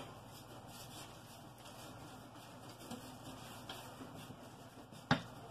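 Faint room tone with a steady low hum, broken by a single sharp click or knock about five seconds in.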